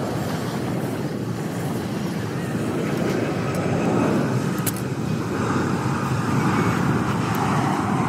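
Jet airliner flying low overhead, a steady rushing engine noise that swells a little louder and brighter over the second half.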